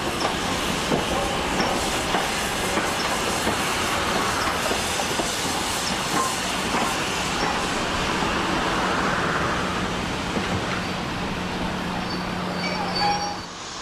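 A steam-hauled passenger train, LNER V2 locomotive Green Arrow and its coaches, rolling slowly past on the rails with the clickety-clack of wheels over rail joints. The sound drops away shortly before the end.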